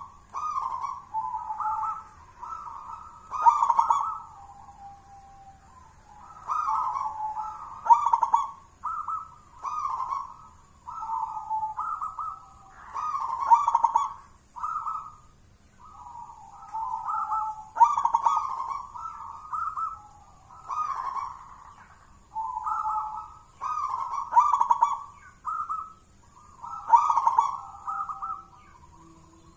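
Zebra dove (perkutut) singing in its cage: repeated cooing phrases of several quick notes, with short pauses between phrases.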